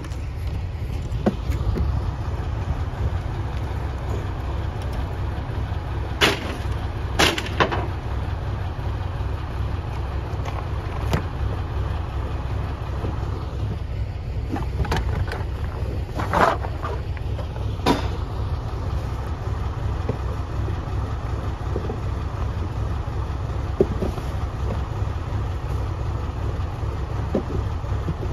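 Rear-loader garbage truck's diesel engine idling with a steady low rumble. Several sharp knocks and clatters come over it as trash is loaded, the loudest between about six and eighteen seconds in.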